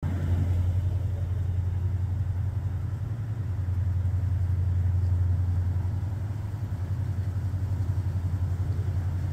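Tugboat's diesel engines running, a steady low throb with a fast, even pulse.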